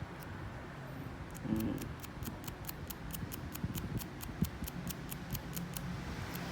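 Quick, evenly repeated light scraping clicks, about four a second, from cleaning the contacts of an iPhone charging cord's connector, which is making poor contact.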